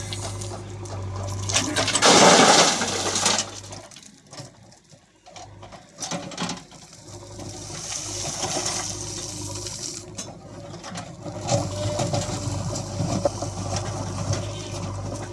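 A heavy diesel engine runs with a steady low hum. About two seconds in a loud rush of earth and stones pours down, and later there is more rushing and clatter of loose material.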